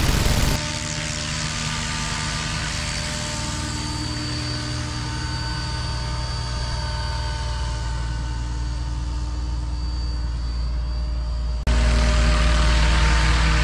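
Electric 600-size scale RC helicopter in flight: steady whine of the brushless motor and rotors, its pitch bending slightly as it moves. The sound changes abruptly twice, about half a second in and near the end, becoming louder and deeper for the last stretch.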